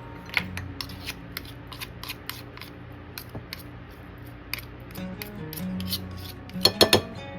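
Kitchen utensil scraping and clicking irregularly against a mixing bowl while flour is worked into the dough, with a quick clatter of louder clinks near the end. Soft background music plays underneath.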